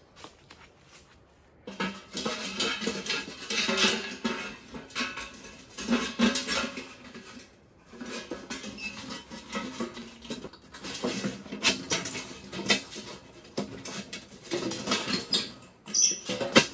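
Gloved hands working inside a metal stovepipe section for a hot tent's wood stove: irregular scraping and rattling of metal on metal. It starts about two seconds in, with a short break near the middle.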